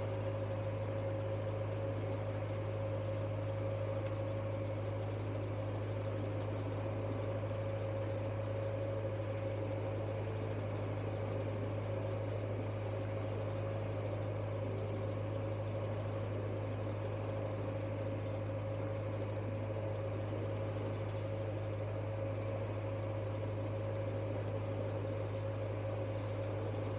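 Narrowboat's diesel engine running steadily under way: a constant low hum with a steady higher tone above it, unchanging throughout.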